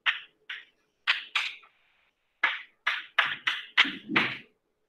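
Chalk writing on a blackboard: about a dozen short scratching strokes and taps as a word is written, with a brief pause partway through.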